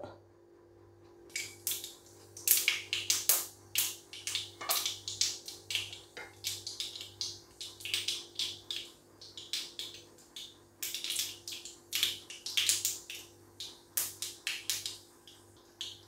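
Mustard seeds spluttering in hot coconut oil: a dense, irregular crackle of small pops that starts about a second and a half in. This is the tempering stage, when the oil is hot enough to burst the seeds.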